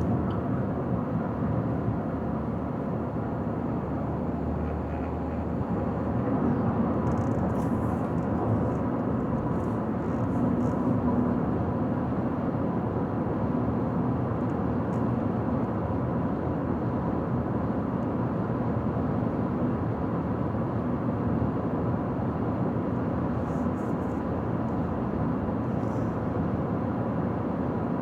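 Car driving at steady highway speed: constant road, tyre and engine noise.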